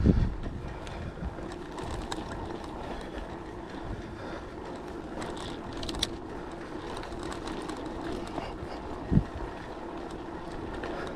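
Bicycle rolling along at a steady pace, a steady low hum of tyres and drivetrain with scattered small knocks and rattles, and one louder thump about nine seconds in.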